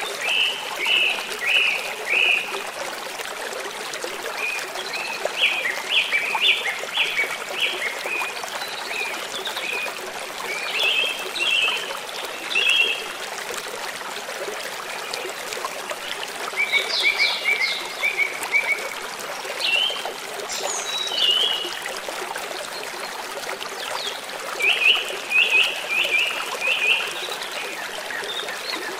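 Small stream flowing and trickling steadily, with a bird singing over it: about six short phrases of quick repeated notes, a few seconds apart.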